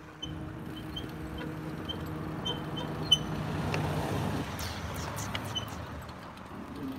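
A motor vehicle's engine hum, swelling to its loudest about four seconds in and then fading as it passes, with a sharp click about three seconds in.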